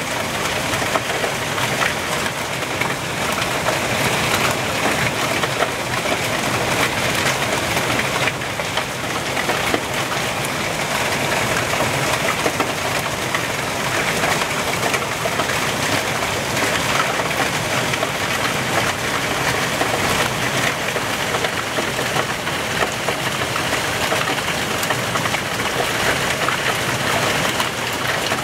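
Heavy rain and hail of a hailstorm beating down: a steady, dense hiss peppered with many sharp ticks of drops and stones striking.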